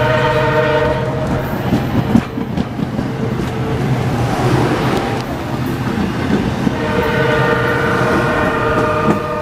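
Passenger train cars rolling past close by, a steady rumble of wheels on rail with a low hum underneath and a few clacks about two seconds in. A sustained high tone of several pitches sounds twice, over roughly the first two seconds and again near the end.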